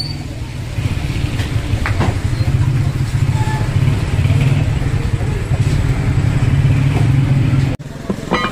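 Motorcycle engine running steadily close by, a low rumble, with general street noise. It cuts off suddenly near the end, and a couple of light knocks follow.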